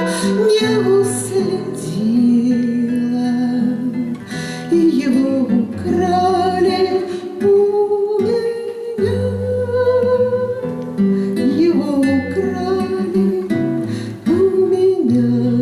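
A woman singing a slow song with acoustic guitar accompaniment.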